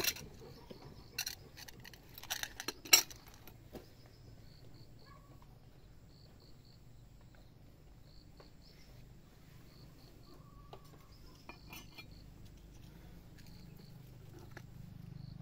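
Scattered sharp metallic clicks and clinks from handling a scoped air rifle on its rest, the loudest about three seconds in and a few more around twelve seconds. Insects chirp in short repeated pulses throughout.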